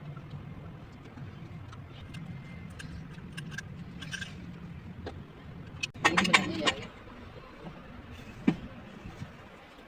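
Toyota Prado's 1KD 3.0-litre four-cylinder turbo-diesel running with a steady low hum, with scattered light metallic clicks. About six seconds in comes a short, loud burst of metallic jangling and clicking, and a single sharp click near the end.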